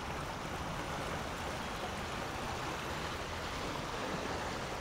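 Steady rush of water and wash around a 12-foot aluminum V-hull boat running at top speed, with its ePropulsion Spirit 1.0 Plus electric outboard very quiet beneath it.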